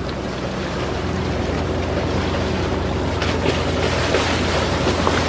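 Boat engine running steadily, with water and wind noise over it; the rushing noise swells briefly about three seconds in and again near the end.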